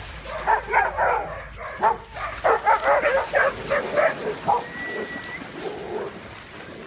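Dog barking and yipping excitedly in quick short bursts for about four seconds, then quieting.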